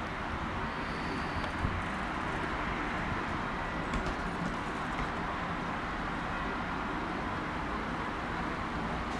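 Steady rushing rumble of an ÖBB regional electric train rolling away in the distance, with a pigeon's wings flapping near the start.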